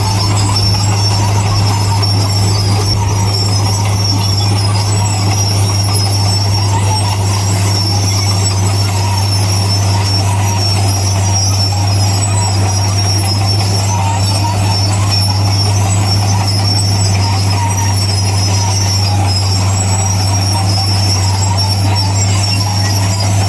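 Heavy diesel earthmoving machinery running steadily: a constant low engine drone with a thin, high metallic squeal over it.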